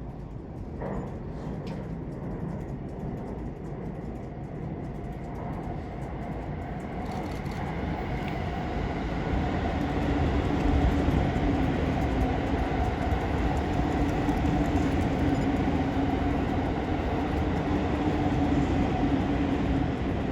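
A train passing, its running noise building over the first ten seconds and then holding steady, with a steady hum running through it.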